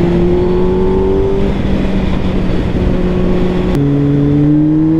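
Kawasaki Z800's inline-four engine through an Akrapovic exhaust, pulling in gear with its pitch climbing slowly, then an upshift a little under four seconds in where the pitch drops and starts climbing again.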